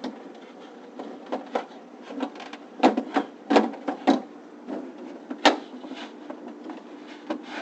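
Refrigerator drawer being worked onto its slide rails: a series of irregular knocks and clicks as it is pushed and shifted against the runners, the sharpest click about five and a half seconds in.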